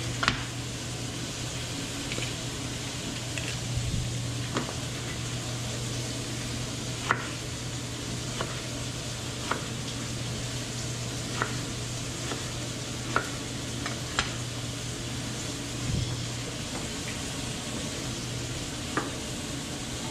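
Chef's knife striking a plastic cutting board while cutting onion and garlic: about ten sharp knocks, spaced irregularly. Under them runs the steady sizzle of vegetables frying in oil and a low steady hum.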